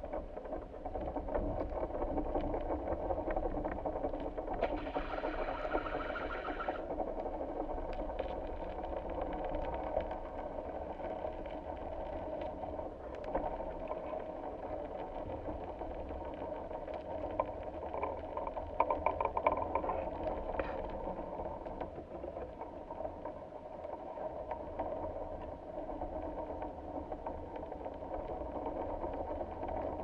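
Steady mechanical hum and low rumble of an engine or motor, with scattered faint ticks and a brief higher hiss about five seconds in.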